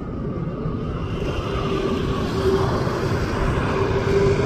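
Jet airliner approaching to land. Its engine noise grows gradually louder, with a steady whine coming in about a second and a half in.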